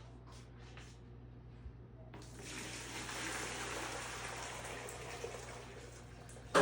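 Water running from a tap, starting about two seconds in, then a sharp knock near the end.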